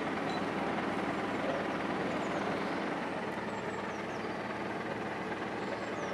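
Heavy military wheel loader's diesel engine running steadily.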